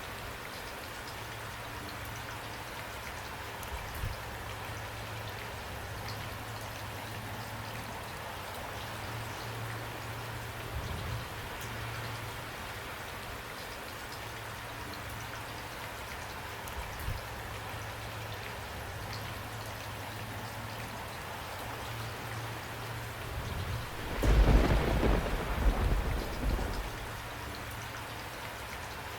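Steady rain falling. About 24 seconds in, a loud low rumble of thunder swells for roughly three seconds, then fades back into the rain.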